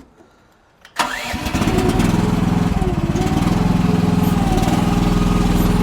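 Mini excavator engine started about a second in: it catches and settles within a second into steady, loud running.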